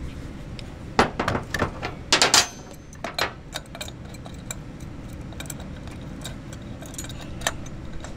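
Sharp metallic clicks and clacks of an AR-style rifle being handled and made safe, the loudest a second or two in, with fainter ticks after, over a steady low rumble.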